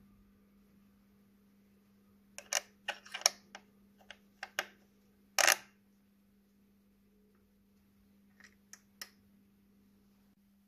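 A run of small sharp metallic clicks and taps from brass spark plug wire terminals being handled and fitted at the engine, with a slightly longer click a little past the middle and three lighter clicks near the end. A faint steady low hum underneath.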